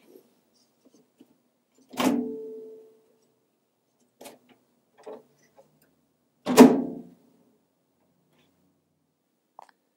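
A small Westinghouse microwave knocking against its plywood shelf and the cabinet opening as it is lifted out and set back in: two loud knocks with a short ringing, about two seconds in and again near seven seconds, with a few light taps between.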